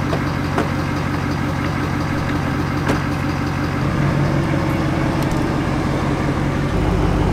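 Pickup truck engine running, a steady low hum that grows a little louder about four seconds in and again near the end, with a couple of light clicks.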